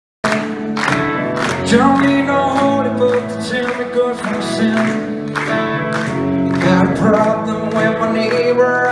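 Live rock band playing a song, with electric guitars, a drum kit beat and a sung lead vocal. The music cuts in abruptly just after the start.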